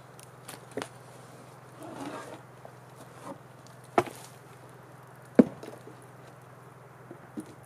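A few sharp wooden knocks as a log piece is handled and struck on a work table, the loudest about five and a half seconds in, with a short scrape near two seconds. A steady low electrical hum runs underneath.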